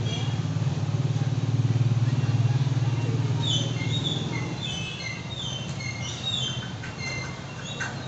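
A low engine drone that swells over the first few seconds and then eases off, with short high chirps at several pitches over it from about halfway. A couple of light clicks near the end.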